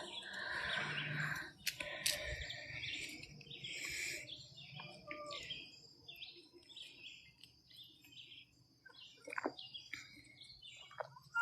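Hens making soft, faint chirps and clucks, scattered and irregular, with a few light ticks near the end.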